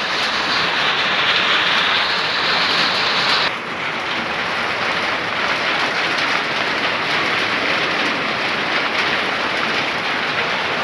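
Torrential rain pouring down in a dense, steady hiss. About three and a half seconds in the sound changes abruptly and loses some of its bright upper hiss.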